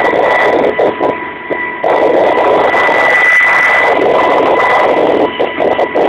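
Kamov Ka-26 helicopter in flight, heard from inside the cockpit: its twin radial piston engines and coaxial rotors running loud and steady, with a steady high-pitched whine over the engine noise. The noise dips briefly about a second in and breaks up into quick flutters near the end.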